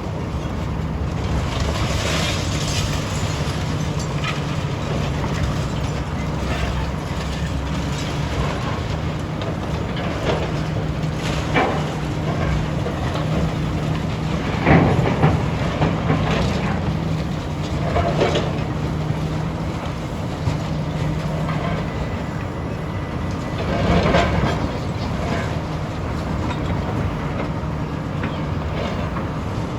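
Heavy demolition machinery's diesel engine running steadily, with clanks and crashing debris several times as the building is torn down; the loudest crash comes about halfway through.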